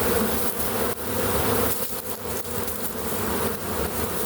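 A large honey bee swarm buzzing, a dense steady hum of many bees as they walk into a hive box. The hum weakens about a second and a half in.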